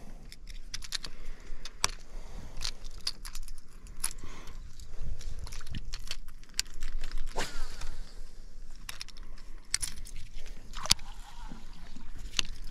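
Clicks, taps and knocks of fishing tackle being handled in a small boat, with a baitcasting rod and reel being worked and reeled in, over a low steady hum.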